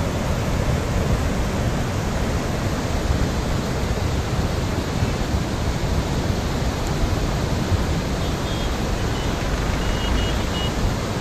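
Flash-flood torrent of muddy water rushing down a mountain river after a cloudburst: a steady heavy rush with a deep rumbling underneath.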